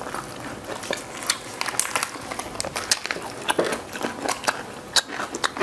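Close-miked eating sounds: irregular sharp crackles and crunches as crispy deep-fried red tilapia and fresh greens rolled in rice paper are handled and chewed.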